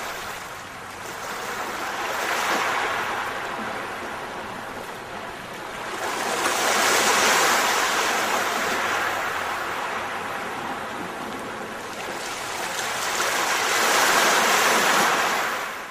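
Ocean surf, waves washing in and drawing back in three slow swells, then cutting off at the end.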